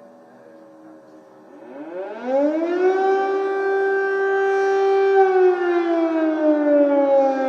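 Civil-defense air-raid siren wailing, the alert for an air attack. A faint fading tone comes first; about two seconds in, a loud wail rises quickly, holds one steady pitch for a couple of seconds, then slowly falls.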